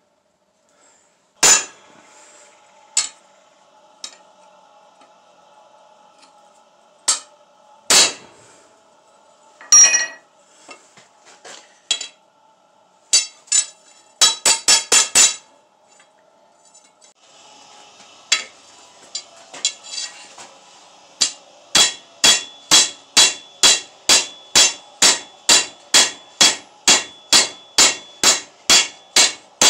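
Hand hammer striking hot steel on an anvil. Scattered single blows at first, then a steady rhythm of about two blows a second through the last third, with a ringing tone lingering between strikes.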